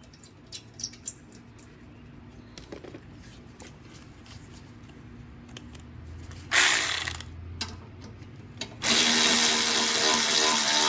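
Handheld power drill running a bolt down: a few small clicks, a brief burst of the motor about two-thirds of the way in, then a longer steady run near the end.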